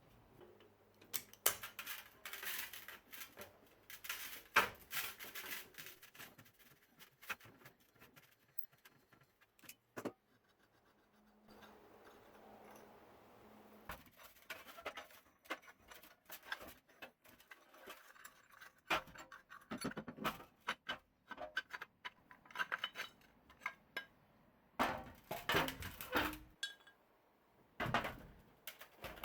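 Metal parts clinking, rattling and scraping as they are handled, in irregular clusters of sharp clicks with short pauses between them.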